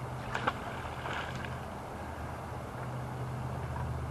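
A steady low engine hum from an unseen motor, with a brief splash about a second in as a thrown fishing magnet lands in the pond.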